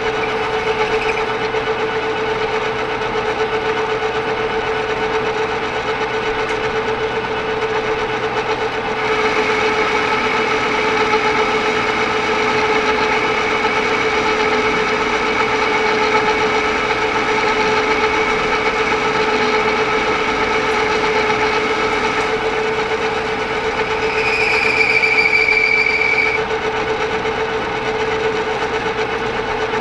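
Metal lathe running under power while its cutting tool takes a facing cut across the end of the spinning workpiece, with a steady whine. About a third of the way in a higher cutting whine joins, and it grows into a sharper, louder squeal for about two seconds near the end.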